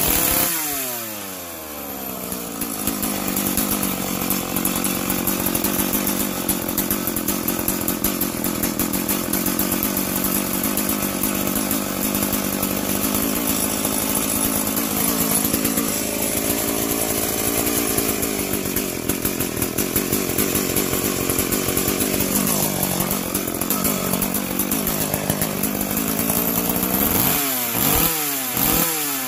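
McCulloch SP81 two-stroke chainsaw running hard. It settles to a steady high speed for most of the time, dips briefly a little past the middle and wavers a few seconds later. Near the end it is blipped in quick up-and-down revs.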